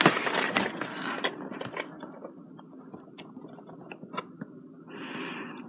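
A cardboard toy box being handled: scattered light clicks and taps with soft rubbing, and a short scrape of cardboard about five seconds in.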